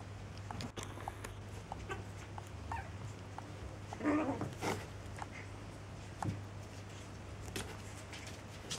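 Chihuahua puppies playing: light scattered clicks and scuffles, with a brief puppy vocal sound about four seconds in.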